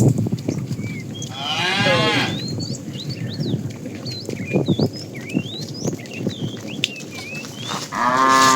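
Cattle mooing twice: a falling call about a second and a half in and another starting near the end. Small birds chirp throughout.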